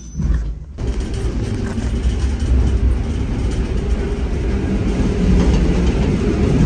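EN57-type electric multiple unit heard from inside the carriage while running on the line: a steady rumble of wheels and running gear that starts abruptly just under a second in and grows gradually louder.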